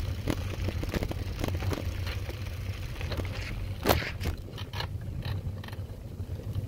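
Bicycle being ridden, with a steady low rumble and irregular scraping and clicking, and one sharp knock a little under four seconds in.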